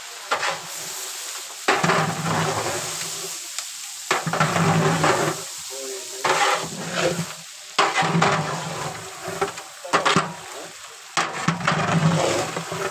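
Long metal spatula scraping and stirring prawns frying in oil in a large metal cooking pot, in repeated strokes about every one and a half to two seconds, with the pot ringing low under each stroke.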